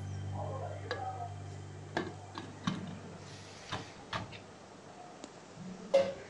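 Mangal aluminium pressure cooker lid being fitted and closed on the pot: a string of irregular metal clicks and knocks, the sharpest one near the end. A low hum underneath stops about two seconds in.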